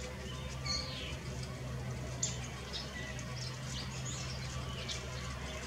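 Grey squirrel gnawing on a bone: a string of short, irregular scraping and crunching ticks from its teeth on the bone, over a steady low hum.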